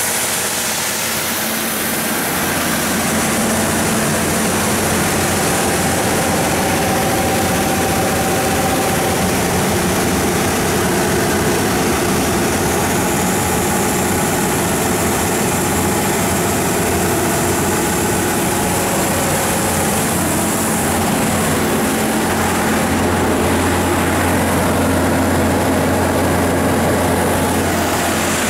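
John Deere 6135HF485 six-cylinder diesel engine of a Baldor 350 kW generator set running steadily, its sound unchanging throughout.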